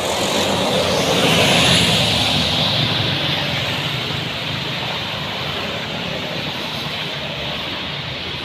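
A heavy road vehicle's engine and tyres passing close by, swelling to loudest about a second and a half in, then a steady engine drone.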